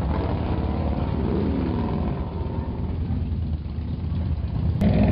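Touring motorcycle engine idling with a steady low rumble.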